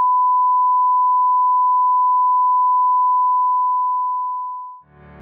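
Steady single-pitch line-up test tone of the kind played with colour bars, fading away a little before the end as music begins to come in quietly.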